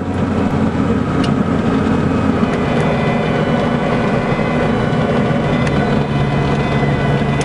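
Diamond DA40 light aircraft's piston engine and propeller running steadily on the ground, heard from inside the cockpit, with a few faint ticks.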